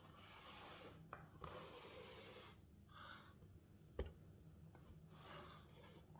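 Hands handling and turning a cardboard product box, its surface rubbing and scraping faintly in a few short passes, with one sharp tap about four seconds in.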